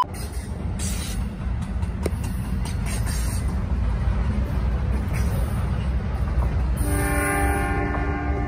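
Double-stack container freight train rolling past with a steady low rumble of wheels on rail. About seven seconds in, a locomotive horn starts sounding a sustained multi-note chord.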